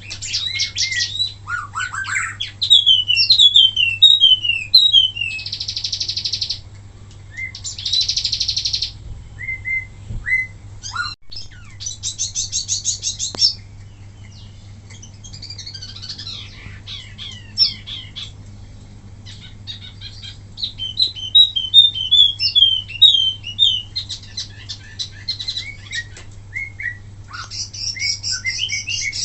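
A wambi mini songbird singing: quick runs of sharp descending chirps, broken by dense buzzy rattles and short pauses. A faint steady hum runs underneath.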